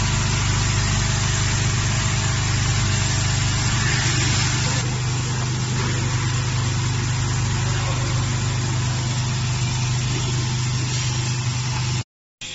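Six-head multihead weigher running: a steady, loud low hum from its vibratory feed pans, with an even hiss over it. It cuts off abruptly near the end.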